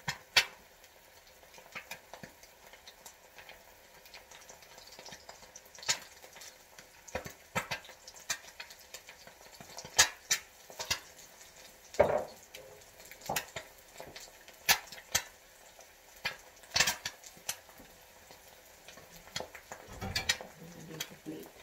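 Kitchen clatter: irregular sharp clicks and knocks of utensils, dishes and jars being handled, with a low thump near the end.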